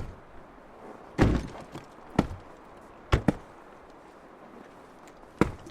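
Axe chopping into a tree trunk to fell it: several heavy, separate strikes at uneven intervals, two of them in quick succession about three seconds in.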